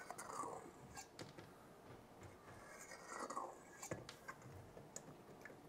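Faint kitchen handling noises: light clicks and scratchy rustling as food is worked by hand in a stainless steel mixing bowl.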